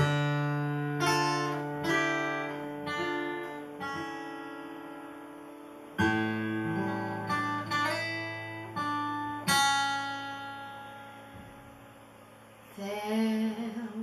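Acoustic guitar playing a slow introduction: chords plucked about a second apart, each left to ring and fade, thinning out into a quiet pause. Near the end a woman's voice begins to sing.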